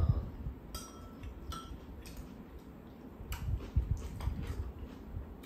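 Metal spoon and chopsticks tapping and clinking against ceramic bowls while eating: scattered light clinks, bunched around a second in and again between three and four and a half seconds.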